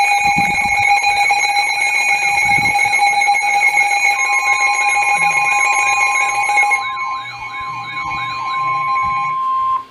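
Emergency alert tones: several steady electronic tones sound together with a warbling, siren-like tone over them, and another steady tone joins about four seconds in. Part of the tones stop about seven seconds in, and the rest cut off just before the end.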